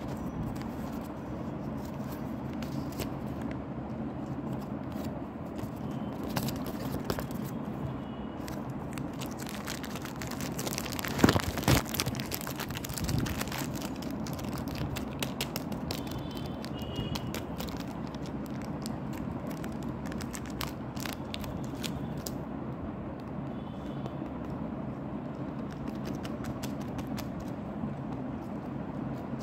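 Crinkling, crackling and scraping of a blind bag's packaging being handled, in scattered small clicks with a louder burst of crinkling about eleven seconds in, over a steady low rumble.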